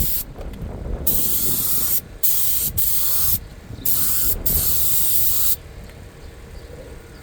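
Inexpensive Harbor Freight air spray gun hissing in about six short trigger pulls, each cutting off sharply, as it sprays colour coat onto vinyl seat upholstery with the air pressure turned down a little. It stops a little past halfway.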